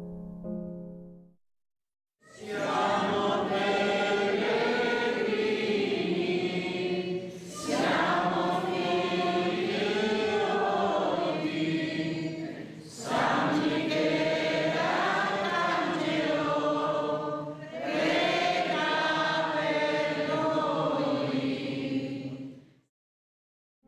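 A group of women's voices singing a religious hymn together in four long phrases with brief breaths between them, after a lingering piano tone dies away at the start.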